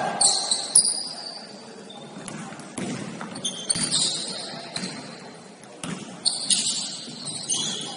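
Basketball game play in an indoor gym: a ball bouncing on the court in sharp thuds about once a second, with short high-pitched sneaker squeaks and players' voices in the background.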